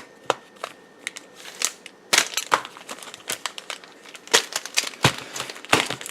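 Crinkling of foil booster-pack wrappers and plastic packaging being handled, with a few sharp clicks at first and denser rustling from about two seconds in.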